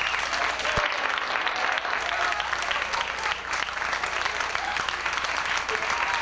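Audience applauding, many hands clapping in a dense steady patter with voices calling out among it. A single sharp click sounds just under a second in.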